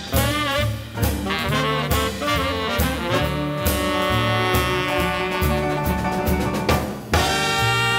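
Small jazz combo playing: trumpet, tenor and baritone saxophones together over upright bass, piano and drum kit. The horns hold a long chord in the middle, and a sharp ensemble hit with a cymbal crash comes near the end.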